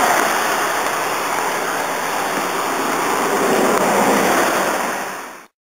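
Steady rush of river water, a loud even hiss that cuts off suddenly near the end.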